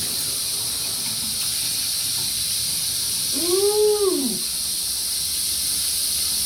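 Newly installed shower head spraying water with a steady high hiss. About three and a half seconds in, one short cry rises and then falls in pitch over the spray.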